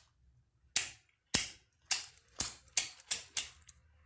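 Seven sharp metallic clicks and clacks at an irregular pace from a half-inch-drive manual impact driver being handled.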